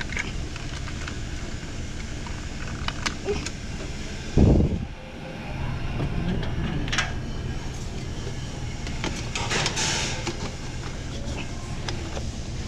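Refrigerator compressor running with a steady low hum after the wiring fix, with scattered clicks and knocks of handling and one loud thump about four and a half seconds in.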